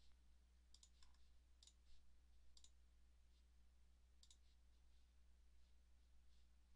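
Several faint computer mouse clicks spaced irregularly over a low steady electrical hum, close to silence.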